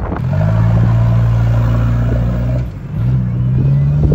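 SUV engine pulling hard through soft sand at steady revs, easing off briefly about two and a half seconds in, then revving up again with a rising pitch.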